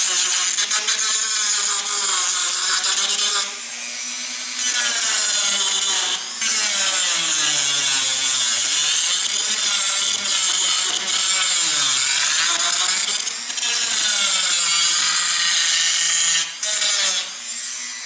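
Dremel rotary tool with a disc wheel grinding away glued ballast and roadbed: a continuous high motor whine mixed with scraping grit, its pitch wavering as the wheel bites and eases. It lets up briefly about four seconds in and again near the end.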